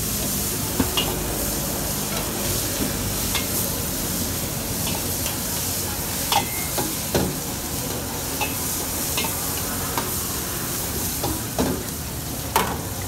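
Food sizzling in a hot wok over a gas flame while a long-handled steel ladle stirs and scrapes it, with a few sharp clinks of the ladle against the wok, the loudest near the end.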